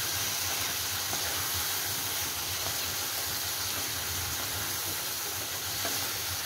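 Bottle gourd and radish curry sizzling in a pan of hot ghee as it is stirred with a wooden spatula: a steady frying hiss with a few faint scrapes.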